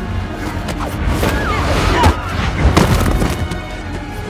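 Action-film soundtrack: a music score under hand-to-hand fight sound effects, with blows, thuds and short grunts of effort. The sharpest hit comes about two seconds in.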